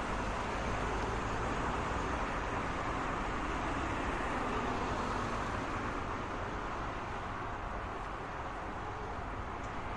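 Road traffic: a steady wash of passing cars, with tyre and engine noise blending into one continuous rumble that eases a little in the second half.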